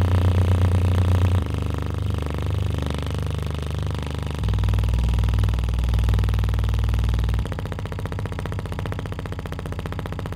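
A woofer with a failed foam surround playing low bass tones that step to a new pitch three times, distorting with a buzzing rattle: the sign of the broken surround letting the cone move unsupported.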